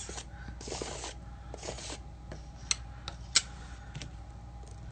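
A small spatula scraping and rubbing paint across a plastic stencil on a stretched canvas, several strokes over about the first two seconds, followed by two light clicks.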